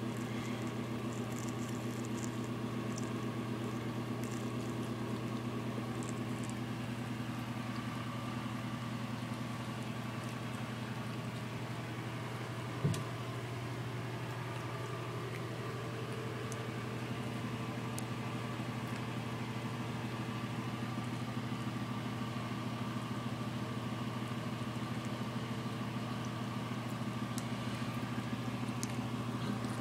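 A steady low machine hum with a buzz of evenly spaced overtones, unchanging throughout, and a single sharp click about 13 seconds in.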